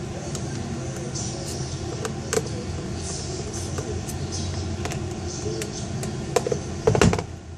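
Light clicks and taps of a small Phillips screwdriver turning out screws from a laptop's metal-and-plastic bottom case, with a few louder knocks near the end, over a steady low background hum.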